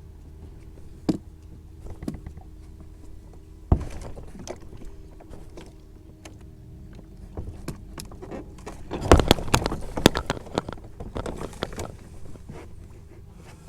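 Knocks and clatter of handling on a kayak, over a steady low hum; a dense flurry of knocks comes about nine seconds in.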